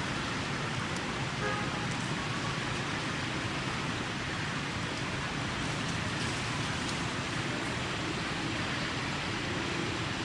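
Steady outdoor background noise, an even hiss with no clear single source, and a faint brief pitched call about a second and a half in.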